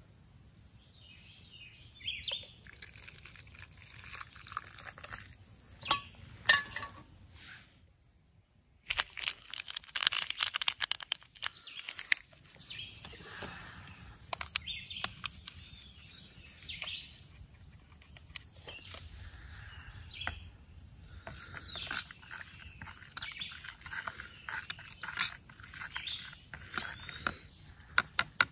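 Outdoor nature ambience: a steady high-pitched insect drone with birds chirping and calling over it. About eight seconds in the sound drops out briefly, then comes a few seconds of sharp clicking and crackling.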